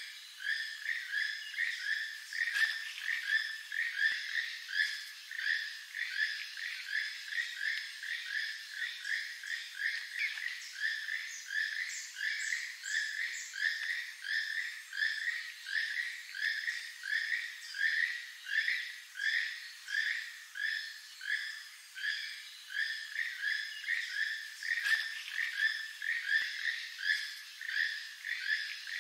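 Keel-billed toucan calling: a frog-like croak repeated steadily, about two to three calls a second, without a break.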